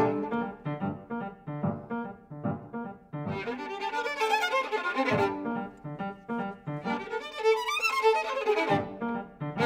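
Prima-kobyz, the four-string Kazakh bowed instrument, playing short detached notes over grand piano accompaniment. The playing grows louder and busier about three seconds in and again near the end.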